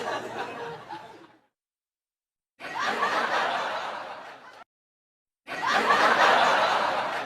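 A group of people laughing, in three separate takes: the first fades out about a second in, the second starts a little later and cuts off abruptly after about two seconds, and the third, the loudest, starts near the end after another short gap of dead silence.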